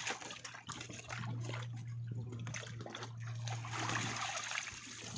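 Water splashing and trickling as a net full of fish is hauled up out of a fish cage and drains back into the water.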